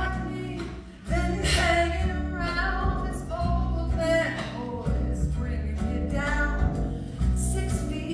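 A woman singing a musical-theatre song over a live band, her melody line riding on a continuous low accompaniment.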